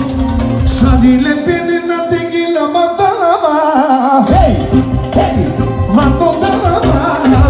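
Loud live band music with a man singing into a microphone. The bass and beat drop out for about two seconds in the middle, leaving a wavering, ornamented melody line, then come back in.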